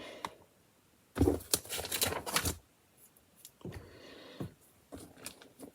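Plastic LEGO pieces clicking and rattling as they are handled: a quick cluster of clicks about a second in, then a few fainter clicks.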